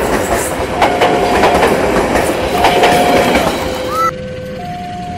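Passenger train carriages rolling past close by, their wheels clacking over rail joints, while a level-crossing warning alarm sounds under them in two alternating tones. About four seconds in, the train noise drops away abruptly, leaving the alarm alternating between a lower and a higher tone about once a second.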